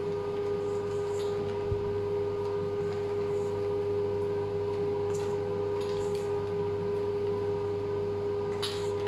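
Steady machine hum holding one tone throughout, with a few light scrapes and taps of a spatula against a stainless steel bowl as ganache is scooped into a piping bag.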